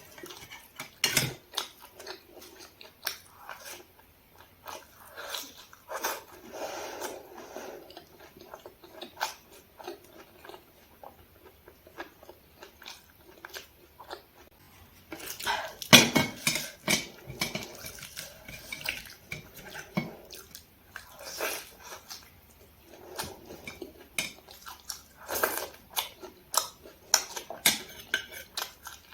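Close-miked chewing and wet mouth sounds of someone eating, with sharp clicks and smacks scattered throughout and a dense flurry of them about halfway.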